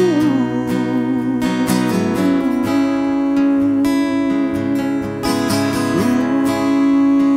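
Acoustic guitar strummed in an instrumental break between verses of a song, with one held note above it that wavers at first and then holds steady.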